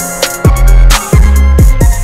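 Hip hop backing music with deep bass notes that slide down in pitch and a sharp drum hit on the beat.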